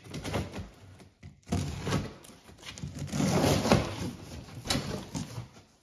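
A cardboard box being cut open with a utility knife: the blade slits packing tape and cardboard, with irregular scraping, rustling and light knocks of the cardboard. The loudest stretch comes about three to four seconds in.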